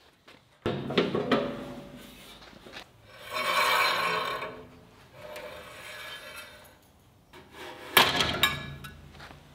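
The wheels of a Jet 14-inch band saw being spun and rocked by hand. A wheel whirs up and fades in the middle, with clunks and clicks at the start and again near the end as the wheels shift on worn bearings that have a lot of play.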